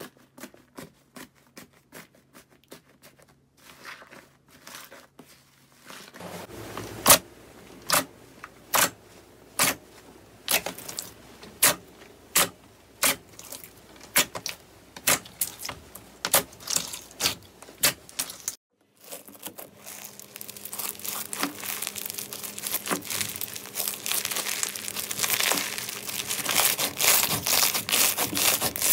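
Hands working slime. First a soft blue slime is pressed and torn with faint small clicks. Then a clear pink slime is squeezed, giving sharp pops about once a second. Last, a bumpy crunchy yellow slime is squeezed with dense crackling that grows louder.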